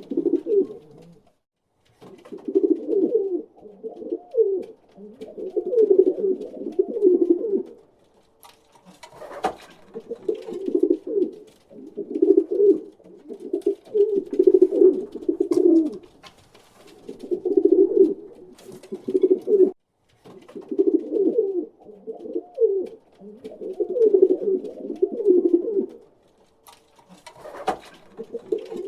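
Pigeon cooing: low, throaty coos in repeated phrases of a second or two with short pauses between them. Twice a brief sharp noise cuts in.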